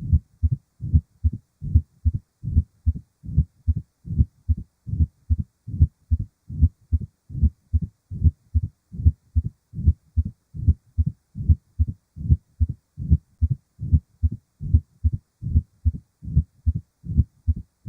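Human heart sounds heard through a stethoscope: regular low thuds in an even heartbeat rhythm, a little over two thuds a second.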